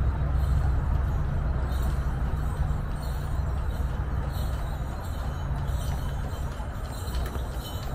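Bells on a horse-drawn carriage jingling lightly, more distinct near the end, over a steady low rumble.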